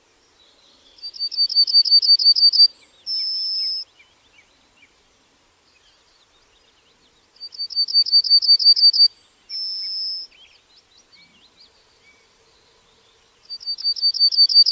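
Yellowhammer singing its song: a rapid run of about a dozen short, repeated notes that grows louder, then a brief gap and one long drawn-out final note. The phrase comes twice and starts again near the end, over faint background twittering.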